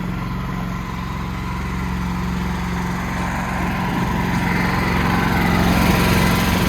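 Generator engine running with its fuel line shut off, puttering as it burns the last fuel in the line and carburetor. Its steady hum turns uneven and somewhat louder in the second half.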